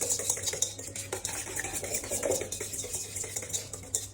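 Egg yolks being mixed by hand in a bowl: a utensil scraping and clicking quickly and steadily against the bowl.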